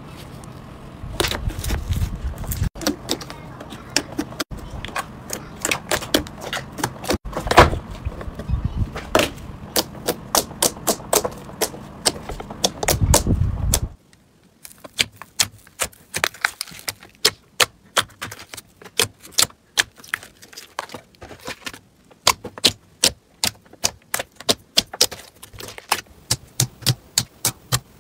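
Slime being pressed and squeezed by hand, giving rapid crackling clicks and pops over a low rumble. About halfway through the rumble stops, leaving a run of separate sharp clicks and pops.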